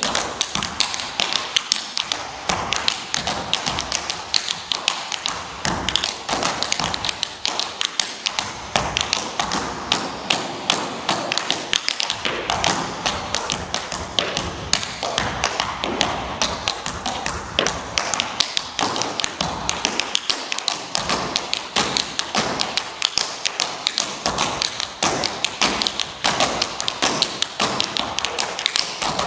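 Two tap dancers' metal-plated tap shoes striking a wooden stage floor: a dense, fast run of sharp taps, some struck harder than others.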